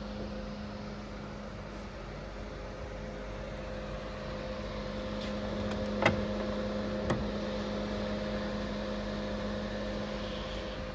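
Push-to-open charging-port flap on an MG ZS EV's front grille: a sharp click as it is pressed, then a second, fainter click about a second later. A steady hum runs underneath.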